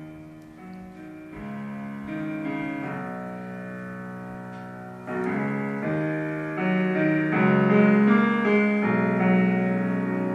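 Piano-led music played back through a pair of home-built tower speakers driven by a Golden Throat E550-type amplifier board. It starts softly and gets louder about five seconds in.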